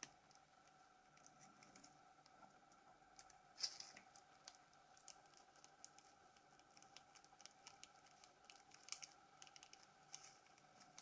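Faint, scattered clicks and light handling noises of a Nokia C3-01's plastic shell and keypad buttons being fitted and pressed during reassembly, over a faint steady room hum.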